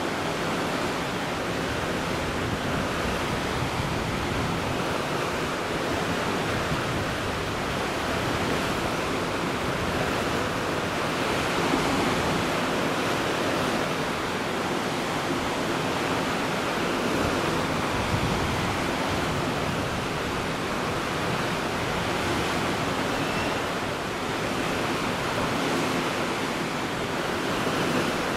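Steady rushing of the sea and wind, waves washing with a slow, gentle rise and fall in level.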